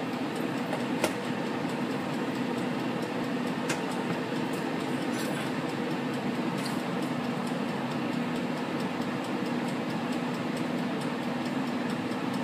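Della XL 5.8-quart air fryer running near the end of its cook cycle: a steady fan whir with a low, even hum.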